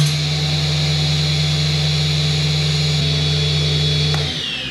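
SawStop 3HP PCS cabinet table saw starting up and running at full speed with a steady hum and high whine. About four seconds in it is switched off and coasts down, the whine falling steadily in pitch.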